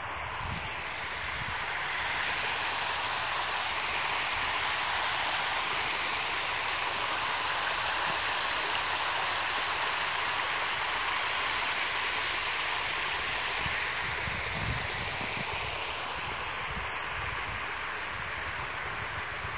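Floodwater from Sombreretillo Creek running over a low-water road crossing after heavy rain: a steady rushing of water. It grows louder about two seconds in and eases a little near the end.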